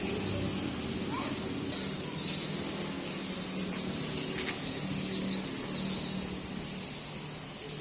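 Small birds calling: short chirps that slide down in pitch, often in pairs, every second or so, over a steady thin high-pitched tone and low background hum.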